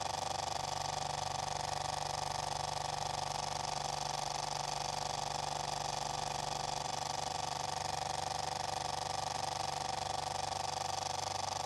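Film projector running: a steady mechanical whir with a fine, even flutter and a low hum underneath.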